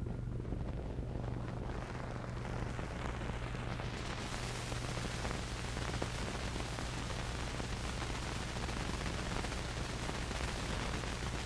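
Background noise of an old film soundtrack: a steady low hum under hiss and fine crackle, the hiss growing stronger about four seconds in.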